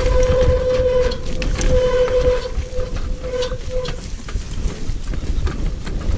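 Off-road wheelchair rolling down a bumpy grass track: a steady mid-pitched whine from the machine that breaks off several times and fades out about two-thirds of the way through, over a constant low rumble from the tyres and scattered clicks and knocks from the frame.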